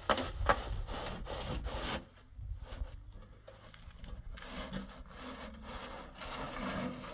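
A shovel scraping and scooping cement mix across a concrete tent floor: a quick run of scrapes for about two seconds, then fainter, scattered scrapes.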